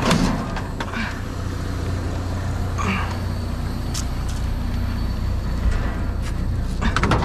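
Steady low rumble of an idling vehicle engine, with a few scattered knocks. Near the end comes a quick cluster of sharp knocks and clatter as someone climbs into a dumpster.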